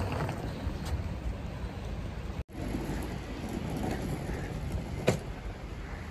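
Steady hiss of light rain on wet pavement, with a low rumble of outdoor noise. The sound cuts out for an instant about two and a half seconds in, and there is a single sharp click about five seconds in.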